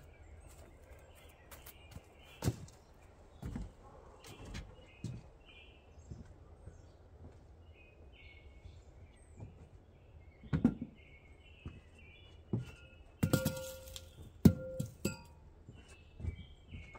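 Irregular knocks and thumps from someone moving about and handling things inside a pop-up camper trailer, with a busier clatter and brief ringing tones between about 13 and 15 seconds in. Birds chirp in the background.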